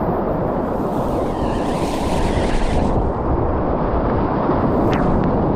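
Steady rush of whitewater rapids, mixed with wind noise on the microphone.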